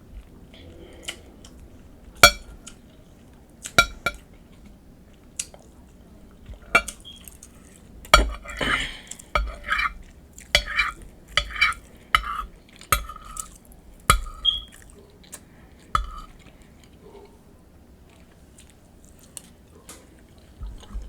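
Eating utensil clinking and scraping on a plate of nachos in sharp, separate clinks. Between about 8 and 13 seconds in there is a busier stretch of scraping and rattling.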